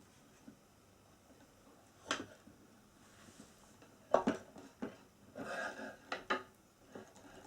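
Flat-pack chair parts being handled and fitted together: a few sharp knocks and clatters, the first about two seconds in, with a short rustling scrape between them.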